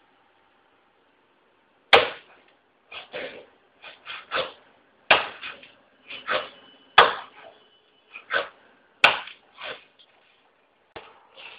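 Fingerboard tricks: a series of about a dozen sharp clacks as the small deck and wheels pop and land on a hard surface, irregularly spaced, starting about two seconds in, each trailing off briefly.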